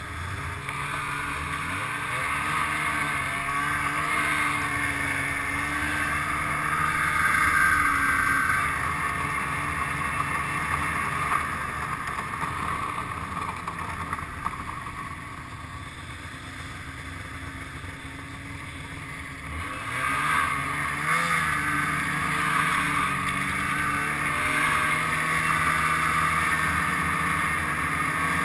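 Snowmobile engine running under way, easing off and quieter in the middle, then revving up again about twenty seconds in.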